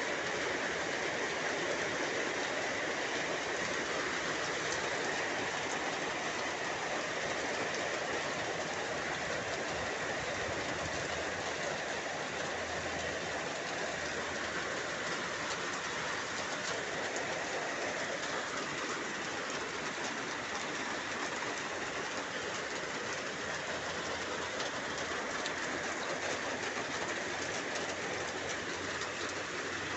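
Heavy rain pouring down steadily, a dense even hiss of falling rain.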